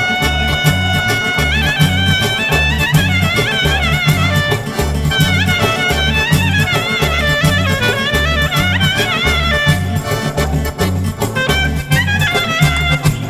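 Lively instrumental Albanian folk-style dance music: a fast, ornamented lead melody over a steady, pulsing bass beat.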